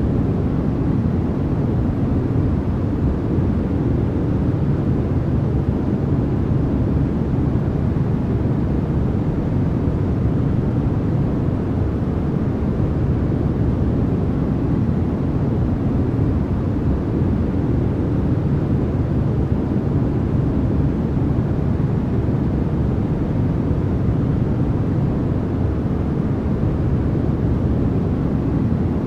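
Steady generated white-noise track: an even, unchanging rush, deep in tone with little high hiss.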